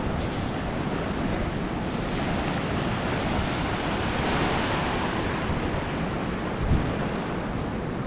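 Small surf breaking and washing up a sandy beach, a steady rushing that swells a little in the middle, with wind buffeting the microphone. A brief low thump comes about two-thirds of the way through.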